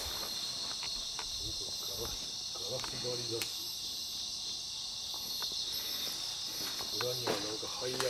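Steady chorus of insects, a continuous high-pitched shrill that does not break, with a few faint murmurs and small clicks beneath it.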